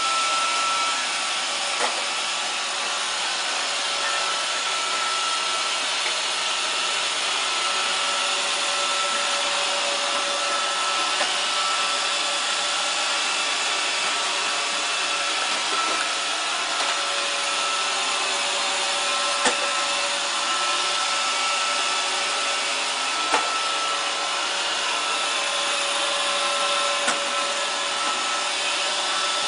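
Roomba robot vacuum running as it drives across a pool table: a steady whir of its motors and brushes, with a faint high tone that comes and goes and a few short sharp knocks.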